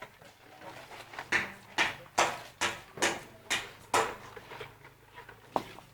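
A hand tool working rough ground or stones, about seven quick strokes in a steady rhythm of two or three a second, each a short scraping impact. The strokes begin about a second in and stop about four seconds in, over a faint steady hum.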